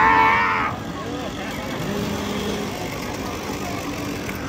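A high scream in the first second, then a chainsaw engine revving up and holding briefly about two seconds in.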